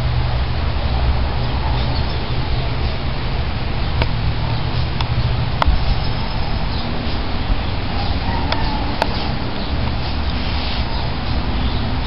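Steady low outdoor rumble with a hiss over it, broken by a few sharp clicks.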